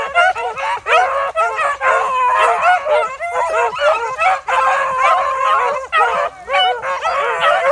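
A pack of beagles baying together, many voices overlapping without a break: the hounds in full cry on a rabbit's trail.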